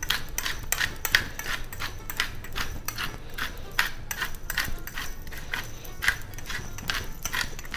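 Hand-twisted pepper mill grinding black peppercorns: a continuous run of dry, rapid clicks as the top is turned back and forth.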